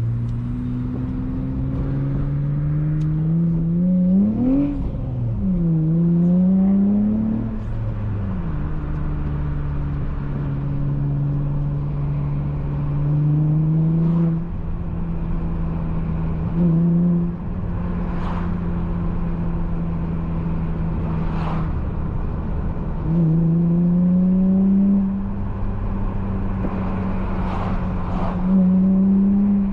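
Honda J32A3 3.2-litre V6 with a Skunk2 Megapower single-exit exhaust in a manual 2004 Accord coupe, under way on the road. The revs climb and fall between about four and eight seconds in, then hold mostly steady, with several short louder pulls on the throttle as the pitch rises.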